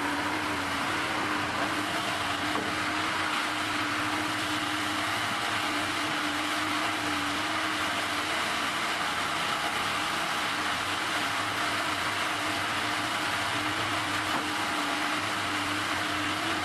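A machine running steadily: an even mechanical noise with a constant low hum throughout.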